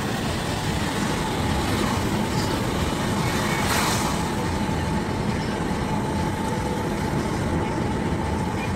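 Steady road and engine noise heard from inside a moving car's cabin, with a brief rise in hiss about four seconds in.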